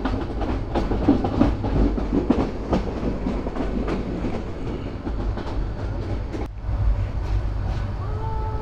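Turna Express passenger train running, a steady rumble with its wheels clicking over the rail joints. A faint steady tone comes in near the end.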